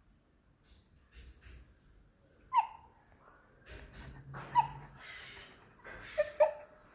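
A 12-day-old baby hiccuping: four short, squeaky hiccups, each dropping quickly in pitch, the last two in quick succession near the end, with faint breathing between.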